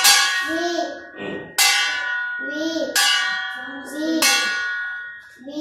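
A stainless steel plate struck with a thin stick and used as a bell: four ringing clangs about a second and a half apart, each left to ring out.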